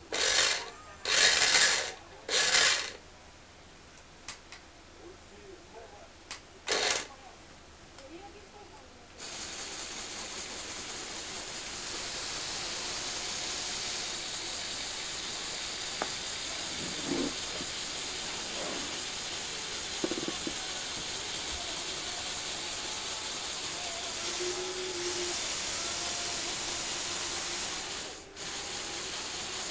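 Lego Technic electric motors and gear train running with a steady whir from about nine seconds in, after three short loud bursts at the start. It cuts out briefly near the end, then runs again.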